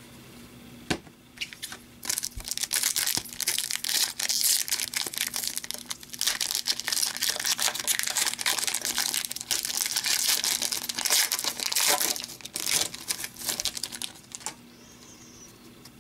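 Foil wrapper of a hockey card pack crinkled and torn open by hand: dense crinkling from about two seconds in that stops a little before the end.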